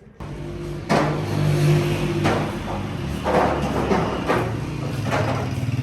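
A vehicle engine running with a steady low hum, and a swishing noise about once a second.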